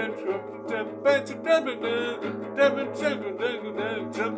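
A voice singing over a strummed guitar.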